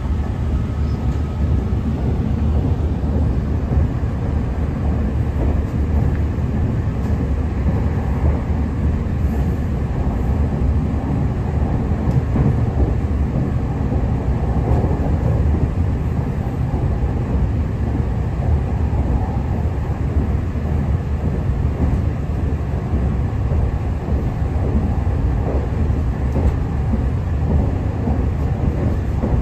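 Inside a Northern Ireland Railways Class 3000 diesel multiple unit running at speed: a steady low rumble of the train's running noise.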